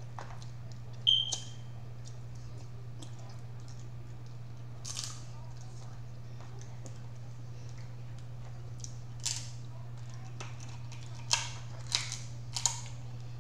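Crab shells being cracked and picked apart during eating: scattered sharp cracks and clicks, the loudest about a second in and a quick cluster near the end, over a steady low hum.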